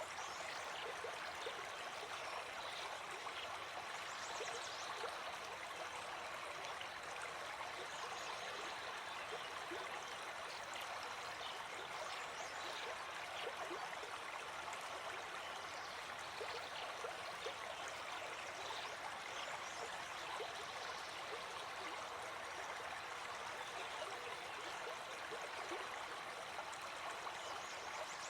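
Flowing stream water, a steady unbroken rushing.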